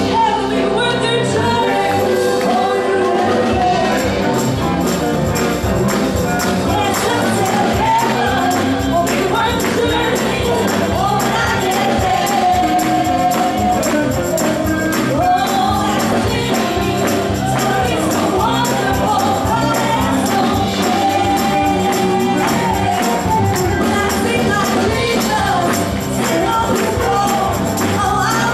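Gospel song: voices singing over instrumental accompaniment with a steady beat. The low, driving rhythm comes in about four seconds in.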